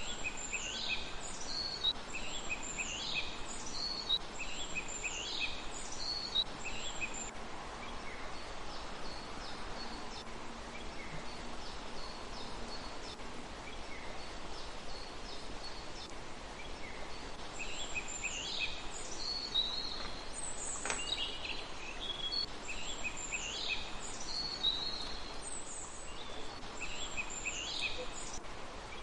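Small songbird singing in short, repeated high phrases: a steady run at first, a stretch of only scattered faint calls, then another run in the second half, over a steady outdoor background hiss.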